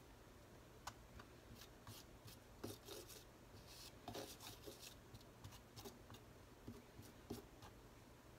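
Faint, irregular scraping of a palette knife working acrylic paint on a palette and canvas, with a few light taps of the blade.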